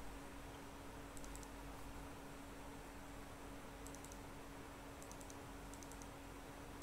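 Four small clusters of faint clicks from a computer's mouse and keys, over a steady low electrical hum.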